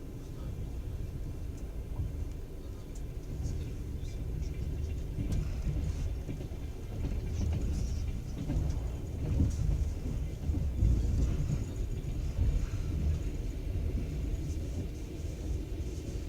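Passenger train running on the rails, heard from inside the carriage: a steady low rumble with scattered faint clicks, swelling a little in the middle.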